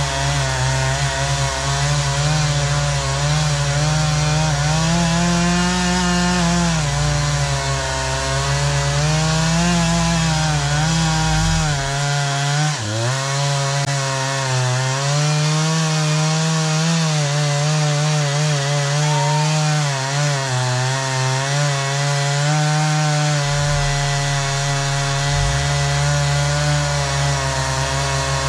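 Chainsaw running at high revs while cutting pine, its pitch wavering under load, with one sharp dip and recovery near the middle.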